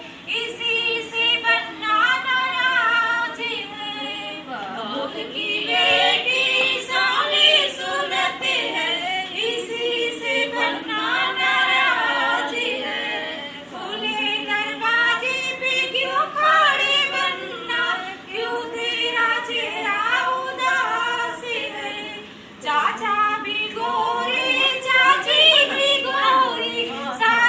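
A group of women singing a folk song together, unaccompanied, with a brief pause late on.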